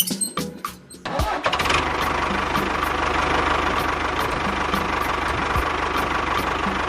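A small engine starts about a second in and then runs steadily with a rapid, even beat.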